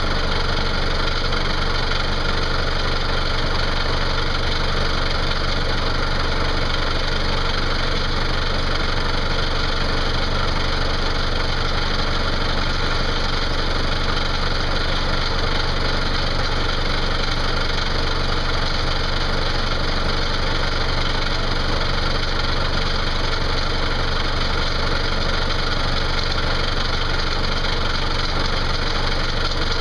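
John Deere tractor engine idling steadily, heard from the tractor's seat.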